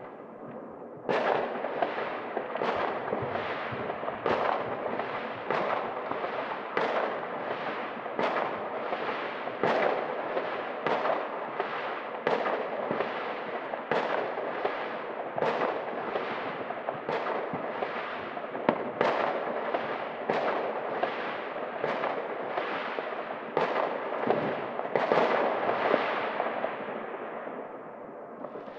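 Fireworks: a firework battery firing a long, regular string of bangs, about one and a half a second, each trailing off before the next. It starts about a second in and stops shortly before the end.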